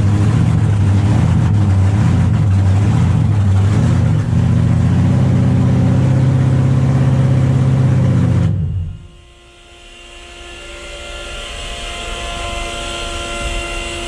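A 1,700-horsepower burnout car's engine running loud, heard from inside the cabin, with a change in its note about four seconds in. It cuts off abruptly about eight and a half seconds in, leaving a steady whine of several tones that slowly grows louder.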